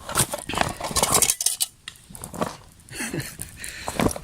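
Metal camp cookware clinking and clattering as it is handled: a quick run of clanks, a short pause, then a few more knocks.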